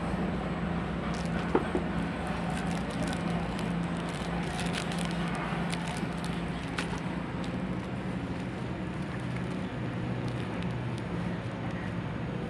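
Clear plastic packaging crinkling as it is handled, with a scatter of short sharp crinkles mostly in the first half, over a steady low background hum.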